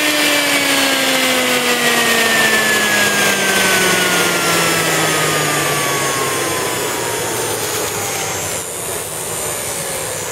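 Dumore 57-031 tool post grinder's electric motor whining as it coasts down after running. Its pitch falls steadily for about eight and a half seconds, and then the rushing hiss drops away.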